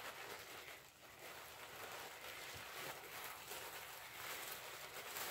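Faint rustling and crinkling of tissue paper as nested straw bonnets are handled and eased apart.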